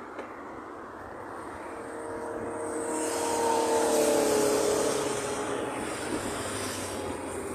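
Highway traffic with steady wind and road noise. A passing vehicle's engine tone swells to its loudest about four seconds in, then fades away with a slight drop in pitch.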